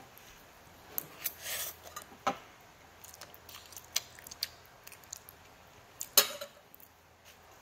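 Scattered clinks and scrapes of a metal fork and spoon against a ceramic plate of instant noodles, the loudest about six seconds in.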